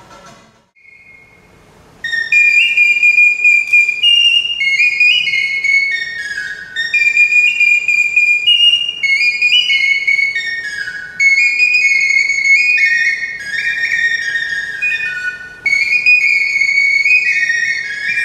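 A small whistle flute held cupped in both hands plays a high, quick melody of stepped notes with some short slides. It starts about two seconds in, after a brief single note.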